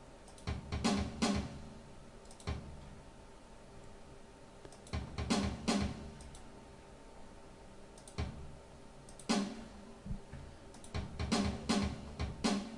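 Hydrogen drum machine playing back a programmed beat from its BigMono kit: sampled Ludwig kick and Rodgers snare hits in a simple repeating pattern.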